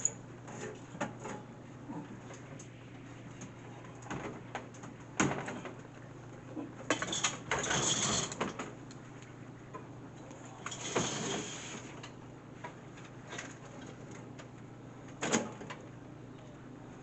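Modular refrigeration unit being slid into a vending machine cabinet: scattered knocks and scrapes, with a longer scrape about seven seconds in and another about eleven seconds in, over a steady low hum.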